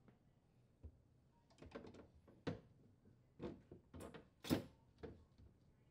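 A refrigerator's glass shelf in its plastic frame being slid onto its support rails and seated: a string of light knocks and scrapes, the loudest a little past halfway.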